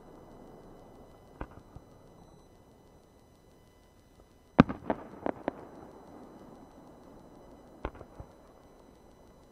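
Aerial firework shells bursting: a faint bang about a second and a half in, a loud bang just past the middle followed quickly by three smaller ones, and two more bangs near the end.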